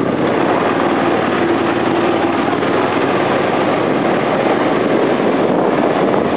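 Steady rushing road and wind noise from a vehicle moving along a gravel road.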